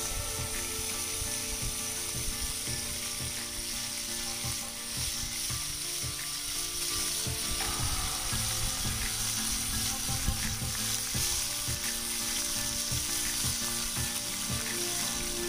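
Raw chicken pieces frying in a pan over an open wood fire: a steady sizzling hiss with rapid crackling throughout.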